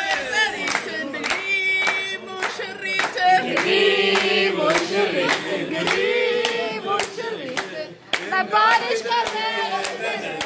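A group of people singing together and clapping along in a steady rhythm.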